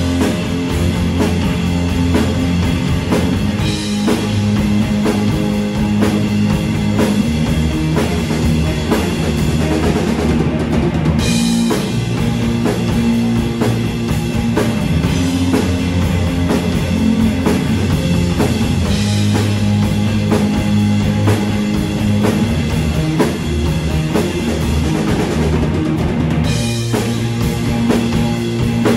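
A rock band playing loud, steady instrumental music: two distorted electric guitars, a baritone bass and a Sonor drum kit. The top end briefly drops out twice, about ten seconds in and near the end, and each time comes back with a sharp hit.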